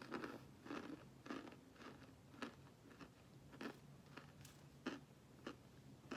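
Chunks of oven-baked cornstarch crunching and crumbling as fingers crush them, a dozen or so short, soft, irregular crunches.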